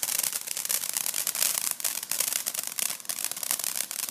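Ground fountain firework spraying sparks: a steady hiss full of fast, dense crackling.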